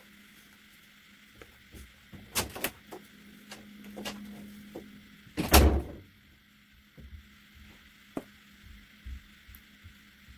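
Light taps and clicks from tweezer work at a tabletop, with one louder thump just past halfway. A faint low hum runs underneath.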